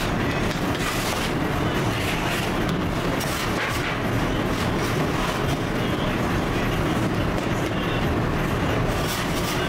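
Steady low rumble of bakery machinery, with a few soft taps as dough is patted and stretched on a floured table.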